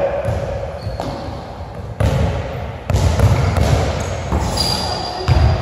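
Basketball bouncing on a hardwood gym floor: sharp thuds about a second apart, echoing in the large hall. A brief high sneaker squeak on the court near the end.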